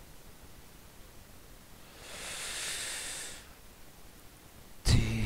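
A soft breath out near the microphone, an even hiss lasting about a second and a half. Near the end a man's voice starts.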